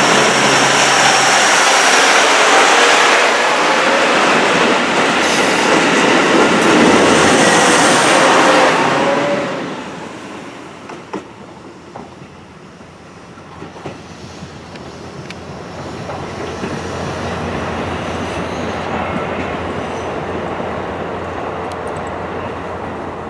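KIYA 95 diesel track-measuring train passing close by. Loud wheel-on-rail and engine noise fills the first nine seconds, then drops off sharply to a quieter, steady rumble with a low hum and a few sharp clicks as it moves away.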